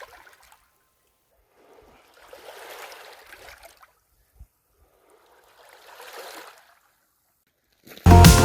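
Small waves lapping softly on the shoreline, one gentle wash about every three seconds. Near the end, loud music cuts in suddenly.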